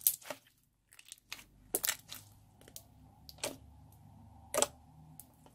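Clear slime squeezed and pressed by hand, giving an irregular series of about a dozen sticky clicks and pops, the loudest just after the start and about four and a half seconds in.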